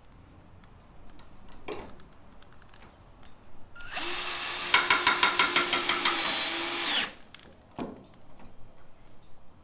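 A power drill driving a self-tapping screw into the hood-pin mount. The motor runs for about three seconds with a rapid run of clicks midway, and there are a couple of short knocks before and after.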